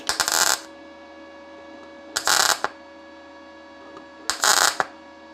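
Three short MAG tack welds on thin 0.7 mm steel sheet from a Parkside PMSG200A1 inverter welder set low at 70 A and 17.6 V. Each arc crackles for about half a second, about two seconds apart, with a steady hum in between.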